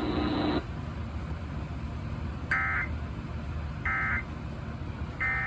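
Emergency Alert System end-of-message signal: three short, identical warbling digital data bursts (the SAME code), about 1.3 seconds apart, over a steady low hum.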